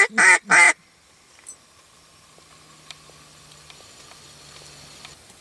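Hunting call blown in three short, loud notes, followed by quiet with a few faint ticks.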